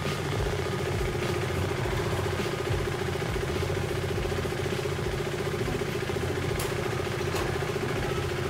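KTM Duke 390 single-cylinder engine idling steadily.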